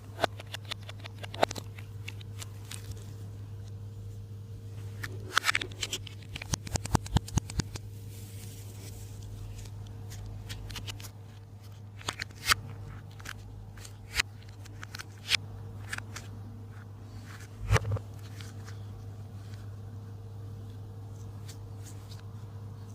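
Slime being handled, sending out sharp clicks and crackles, with a dense run of clicks from about five to eight seconds in and a few single louder ones later. A steady low hum sits underneath.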